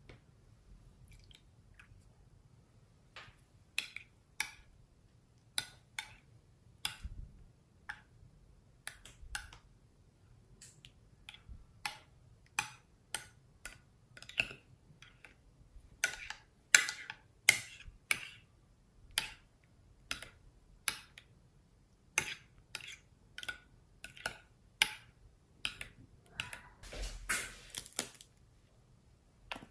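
A thin metal spoon stirring runny slime mix in a glass baking dish: irregular clicks and clinks of the spoon against the glass with wet slaps of the mix, a stroke every second or so, busier near the end.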